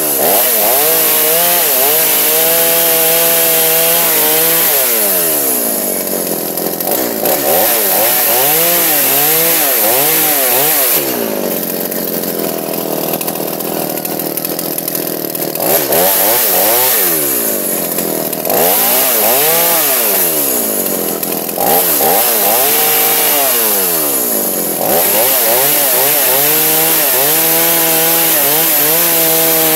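Two-stroke chainsaw running, its engine note repeatedly swinging up and down as the throttle is worked, settling to a lower, steadier idle for several seconds around the middle.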